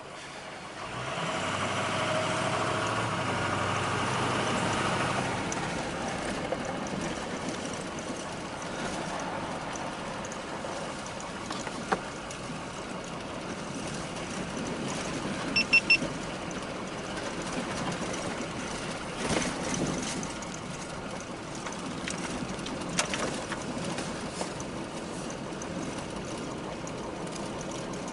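Vehicle driving, with steady engine and road noise, louder over the first few seconds. About 16 seconds in there is a quick pair of short high beeps, and a few knocks and bumps follow.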